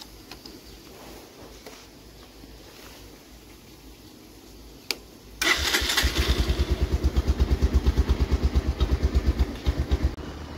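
After a few seconds of quiet and a single click, a motorcycle engine starts and runs with a rapid, even pulse. It drops in level near the end.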